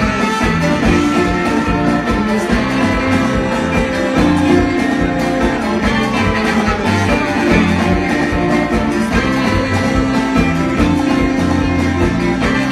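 Live band playing an instrumental passage: electric guitars, bass and drum kit with saxophones, loud and steady with a driving beat.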